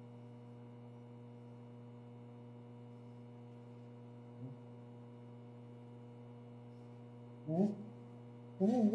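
A steady low hum, like electrical mains hum, with two short voice sounds near the end.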